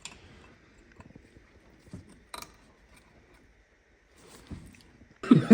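A few faint, isolated clicks and light taps of hand tools being handled at the brake caliper, a second or so apart; a sharper click about two and a half seconds in.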